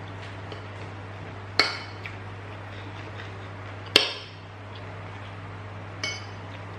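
Metal spoon clinking against a plate three times, with a short ringing after each, the second the loudest, over a steady low hum.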